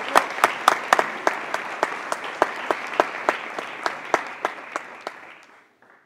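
Audience applauding, with many sharp individual claps close by, fading out about five seconds in.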